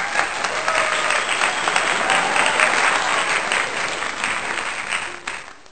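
Crowd applause: many hands clapping in a dense patter, fading away near the end.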